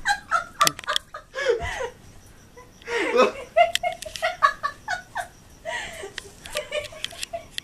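Laughter in several bursts of quick, rhythmic pulses, with quieter gaps between them.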